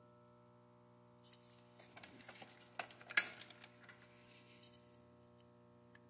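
Small metal clicks and taps from a punch and selector parts being worked in an AR-15 lower receiver to line up the selector, with one sharper click about three seconds in.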